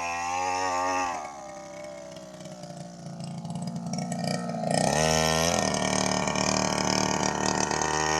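Small engine of a motorised paddy weeder running. It drops to a lower, quieter idle about a second in, then revs back up between about four and five seconds in and runs steadily at speed.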